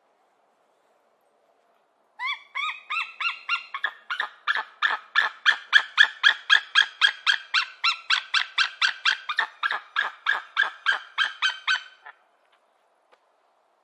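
White-tailed eagle calling: a long run of short, sharp notes at about four a second, starting about two seconds in and stopping about two seconds before the end.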